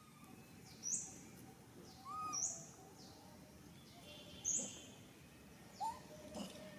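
A bird calling outdoors: a short, sharp, high note repeated about four times, roughly every one and a half to two seconds, with a few fainter lower calls in between.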